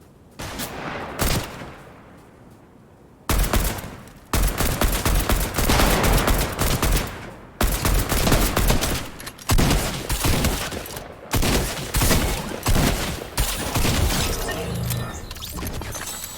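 Rapid bursts of gunfire from a shooter game's sound track, coming in volleys with short breaks between them from about three seconds in.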